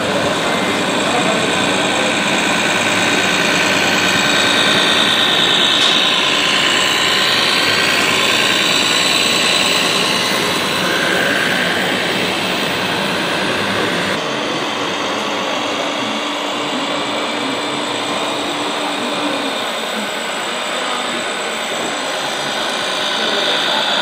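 Small electric motors and gearboxes of RC model trucks whining as they drive, over a steady background of hall noise and distant voices.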